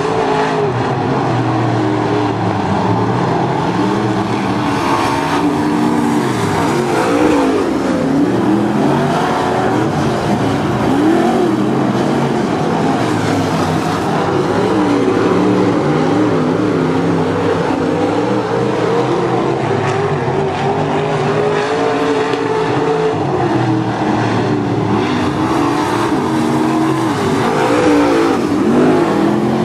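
A pack of dirt-track modified race cars running laps, several engines heard at once, each rising and falling in pitch as the cars go around the oval.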